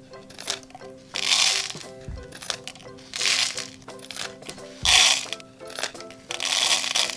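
Background music with about four short bursts of crinkling and rustling: small plastic sachets of dry Orbeez beads being cut open with scissors and the beads tipped into plastic cups.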